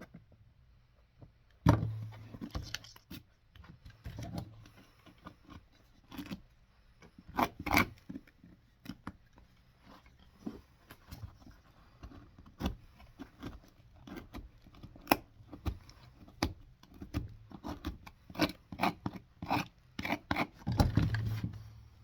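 Irregular clicks, knocks and scraping of a cobbler's hand tools working on a leather boot being resoled.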